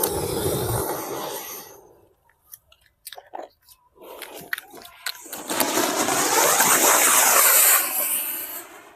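Anar (flower-pot fountain firework) burning: a crackling hiss of spraying sparks that builds from about four seconds in, holds loud, and dies away near the end. A shorter hiss at the start fades within two seconds, followed by a brief lull with a few clicks.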